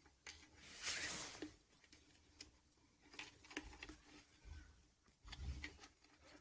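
Faint hand-work sounds from fitting motorcycle instrument parts: scattered light clicks and taps, with a brief rustle or scrape about a second in and a few soft bumps near the end.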